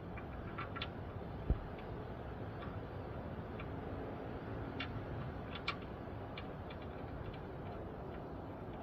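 Scattered light, irregular clicks and taps of hand work on the oil pan drain plug as it is put back in, with one dull thump about a second and a half in, over a steady low background hum.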